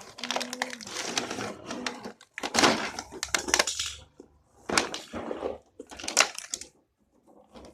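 A Play-Doh box being opened and handled by hand: bursts of crinkling and rustling with short pauses between them.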